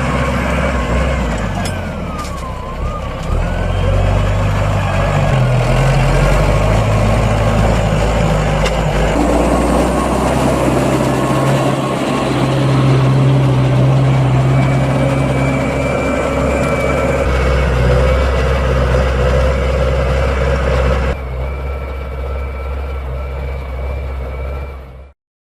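Claas Arion 430 tractor engine running under load while pulling a reversible plough, its pitch shifting a little. The sound gets somewhat quieter about 21 seconds in and cuts off abruptly near the end.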